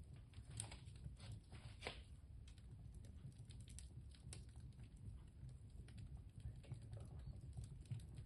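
Small fire crackling faintly, with scattered irregular snaps over a low steady rumble.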